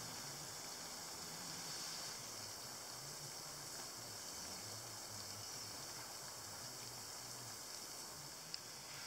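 Faint outdoor ambience: a steady high-pitched hiss over a soft low rumble, with one short click near the end.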